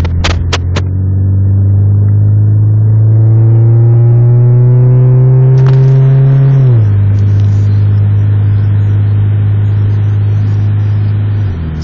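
Honda Civic engine heard from inside the cabin, pulling under acceleration with its pitch climbing for several seconds. The pitch drops sharply about seven seconds in as it shifts up, then the engine runs steadily. A few sharp clicks sound in the first second. The owner is chasing a jump or misfire that he says occurs only under acceleration and calms down in the higher gear.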